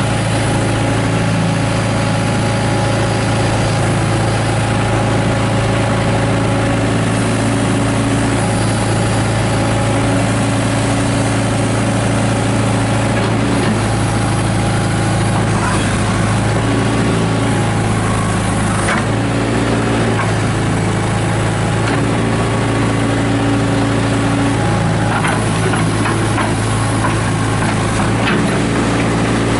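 Case 580 Super E backhoe's Cummins diesel engine running steadily. Higher tones step in and out every second or two, and there are a few short sharp knocks in the second half.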